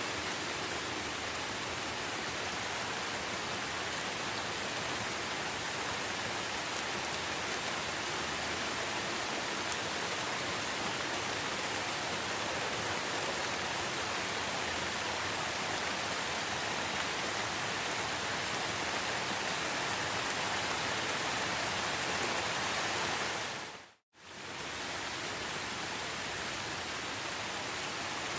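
Steady rain, an even hiss of falling water. It briefly fades out to silence and back in about three-quarters of the way through.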